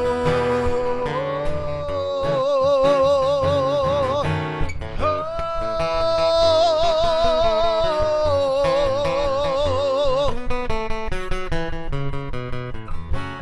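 Live acoustic guitar with a man's singing voice holding a long sung "whoa" with vibrato, over two notes, the second pitched higher. The voice stops about ten seconds in, and the guitar strums on to the song's final chord, ending at the close.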